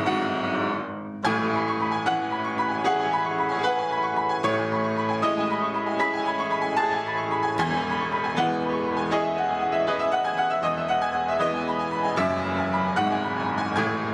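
Background piano music; one piece fades out and another begins about a second in.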